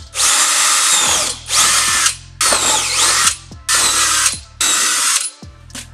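Cordless drill boring holes through a black Kydex sheet in five short bursts, its high whine dipping and rising in pitch as the bit cuts through the plastic.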